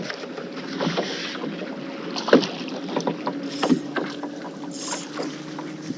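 Knocks and bumps of tackle and handling in a small fishing boat, about three sharp knocks spread over the few seconds. Two short hissing bursts come near the middle, and a steady low hum sets in partway through.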